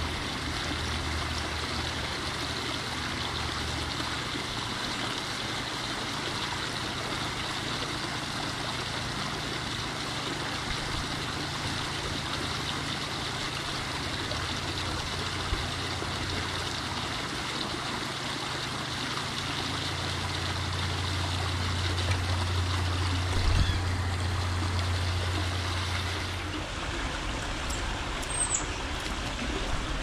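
Steady trickle and rush of running water from a garden pond's water feature, with a low hum that fades out early on and returns for several seconds later.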